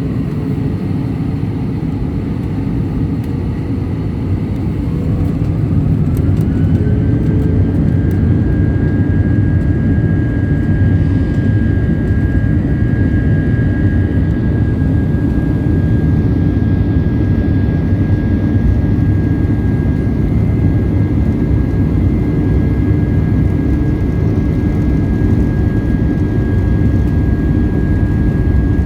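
Airbus A319 jet engines heard from inside the cabin, spooling up: a whine rises in pitch and the rumble grows louder about five seconds in, then both hold steady at high thrust, as for the takeoff roll.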